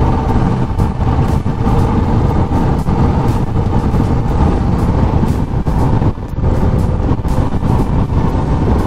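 Royal Enfield Classic 500 single-cylinder motorcycle on the move, its engine and road noise running steadily under heavy wind buffeting on the microphone.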